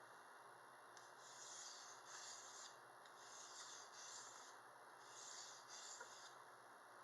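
Knife blade scraped along a sharpener in pairs of strokes, six strokes in all, each about half a second long with a pair roughly every two seconds.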